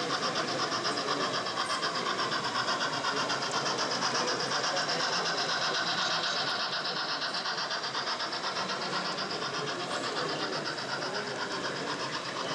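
Model freight train behind a steam locomotive running past on a model railway layout, a steady fast even rattle of its motor and wheels on the track.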